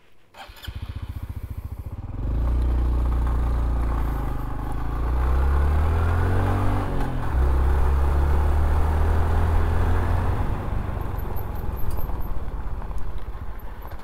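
A motorcycle engine running: a regular putter comes in about half a second in, grows louder about two seconds in, and rises and falls in pitch around the middle before holding steady.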